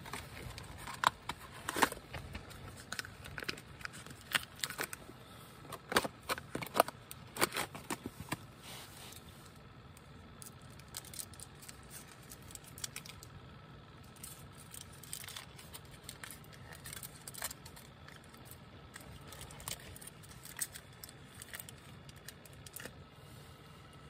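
Cardboard cheese box being opened and its wrapped camembert pieces handled: a run of sharp clicks, tears and crinkles of packaging over the first several seconds, then fainter, sparser rustles.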